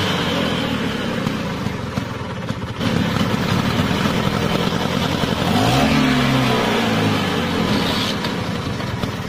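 Vintage Vespa scooter's two-stroke engine running, revved up and back down about six seconds in.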